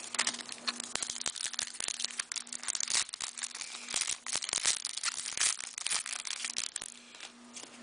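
Hockey card pack wrappers crinkling and crumpling as hands handle them, a dense run of irregular crackles that thins out near the end.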